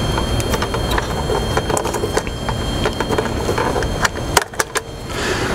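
Pool pump motor running with a steady hum and a thin high whine. Scattered light clicks and knocks come from hands working on the timer enclosure.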